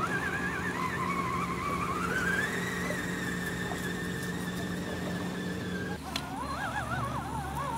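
Electric motor and gear whine of an Axial SCX10 1/10-scale RC rock crawler driving, wavering in pitch, then rising about two seconds in to a steady higher whine as it speeds up. The sound cuts off about six seconds in and a wavering whine starts again.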